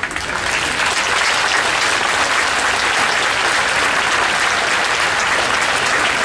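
Large audience applauding. The clapping swells over the first second, then holds steady and dense.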